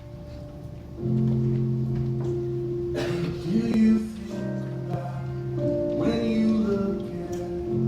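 Music for a praise dance: held chords that swell about a second in, with a singing voice rising and falling over them twice.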